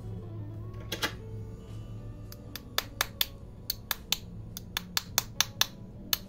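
Light metallic taps of a small hand tool on the cover screws of a NEMA 17 stepper motor, struck to loosen the screws holding its rear end cap. One sharp tap comes about a second in, then a quick run of irregular taps, two to four a second.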